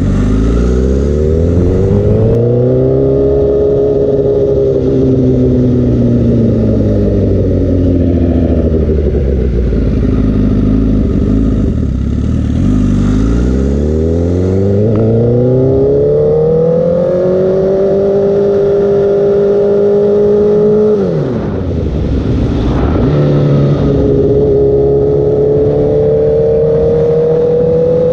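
Honda CBR1000RR inline-four sport-bike engine with an aftermarket Toce exhaust, heard from the rider's position while accelerating away. The pitch climbs, falls back as the throttle eases, then rises again in a long pull and holds. It drops sharply and briefly about three quarters through at a gear change, then climbs steadily as the bike picks up speed.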